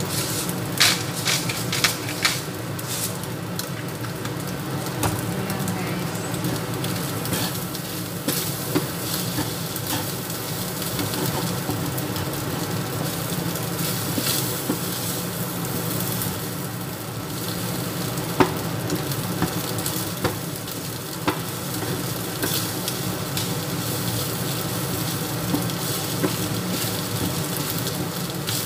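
Rice with garlic and beef sausage sizzling steadily as it fries in a pan, stirred with a wooden spatula. Scattered sharp knocks of the spatula against the pan, several in the first two seconds.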